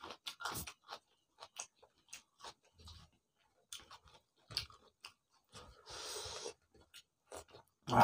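Close-up chewing and lip-smacking of people eating rice and curry with their fingers: irregular wet smacks and small crunches, with a brief breathy rush about six seconds in.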